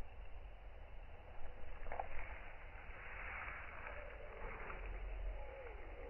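Faint night-forest ambience: a low steady hum under a soft hiss of background noise, with a few light clicks about two seconds in and a faint tone sliding down in pitch near the end.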